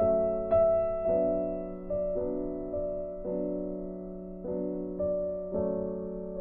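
Background piano music: slow notes struck about once a second, each ringing out and fading before the next.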